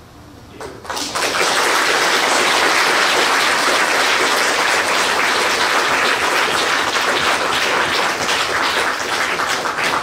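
Audience applauding: the clapping swells in about a second in and holds steady, thinning into scattered separate claps near the end.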